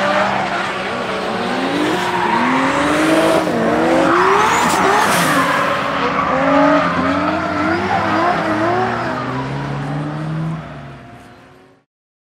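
Supercharged BMW E92 M3 V8 drifting, its revs rising and falling again and again under throttle while the tyres squeal. The sound fades out near the end.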